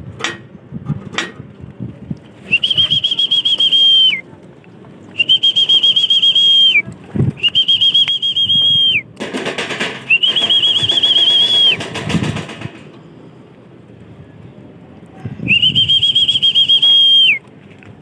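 Pigeon-calling whistle blown in five long, trilling notes, each warbling quickly on one high pitch and dropping off at the end: the call that brings pigeons home into the trap loft.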